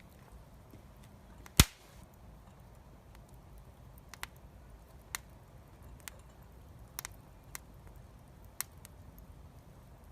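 Wood fire crackling: one loud sharp crack about a second and a half in, then scattered smaller pops at irregular intervals.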